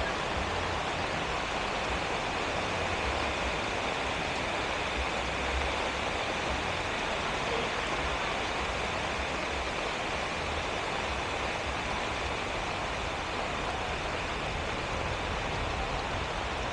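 Heavy rain falling, a steady even hiss, with an uneven low rumble underneath.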